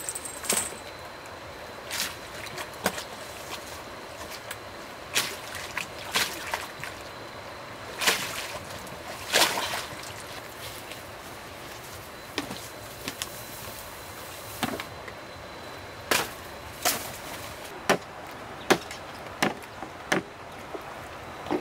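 Scattered sharp knocks, more than a dozen at uneven intervals, over a steady background of running water.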